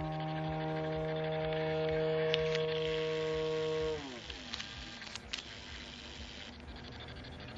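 Radio-controlled aerobatic model airplane's motor and propeller droning at a steady pitch. About four seconds in, the pitch slides down and the sound drops to a quieter, rougher drone.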